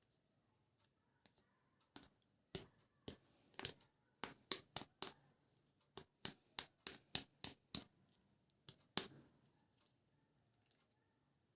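A run of about twenty sharp plastic clicks and snaps, quick and irregular, bunched in the middle, from hands handling plastic toys during unboxing.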